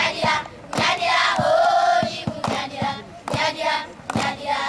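A group of schoolgirls singing together in chorus, with hand claps sounding through the song.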